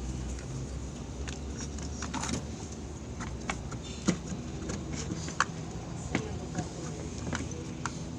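Scattered clicks, taps and knocks of parts and tools being handled while a steering assembly is put back together, two sharper knocks about four and five seconds in, over a steady low hum.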